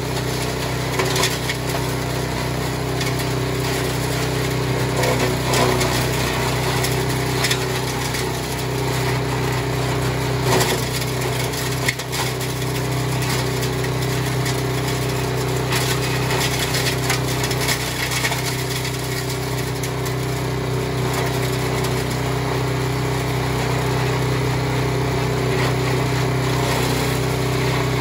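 Kioritz KS50 engine-driven wood chipper-shredder, its Honda 5-horsepower single-cylinder engine running steadily under load while branches are fed in and chopped. Scattered sharp cracks and crunches of the wood breaking up sound over the steady engine.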